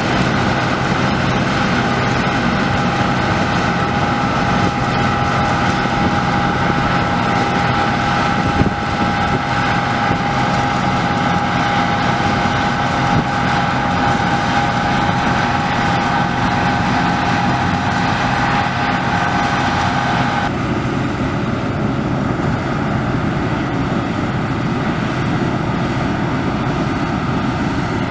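Deutz-Fahr 4068 HTS combine harvester running while combining barley: a steady mechanical drone with a high whine on top. The whine stops about two-thirds of the way through and the drone carries on.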